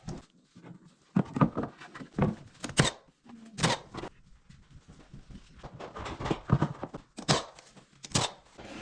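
Irregular knocks and thuds of carpentry work on wooden stairs, about a dozen sharp strikes at uneven spacing with handling noise between them.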